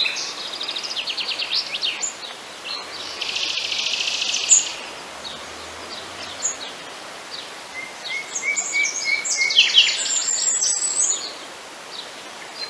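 Songbirds singing: a mix of chirps and rapid trills, with a dense buzzy trill about a third of the way in and a quick run of notes past the middle.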